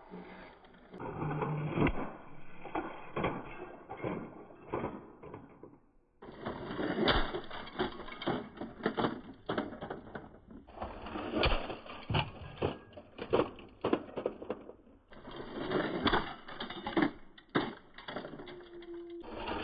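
Diecast model cars crashing and tumbling on concrete: dense, rapid clattering and rattling of metal and plastic parts and bits of debris. It comes in four runs of about four seconds each, each cut off abruptly.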